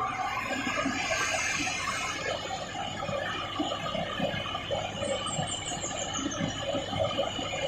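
Excavator working at a rock-loading site: a steady high-pitched squeal over a dense, busy rattle.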